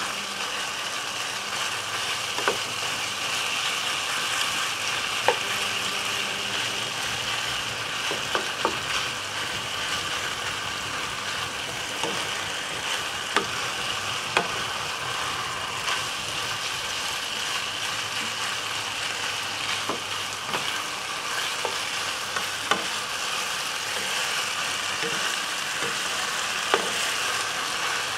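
Buffalo meat strips sizzling steadily as they are stir-fried in hot oil, with a sharp knock of the stirring utensil against the pan every few seconds.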